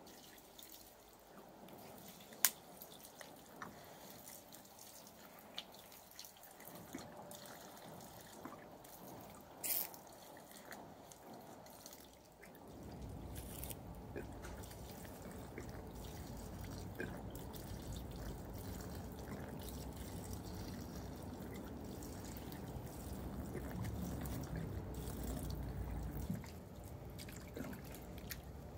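Water trickling and dripping from a plastic jug's spigot onto a rock and into a muddy puddle on a plastic tarp, with a few sharp ticks. The running water grows fuller and louder about halfway through and eases back shortly before the end.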